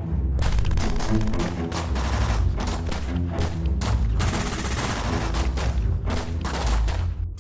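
Bursts of gunfire, many shots in quick succession with short pauses between volleys, over background music.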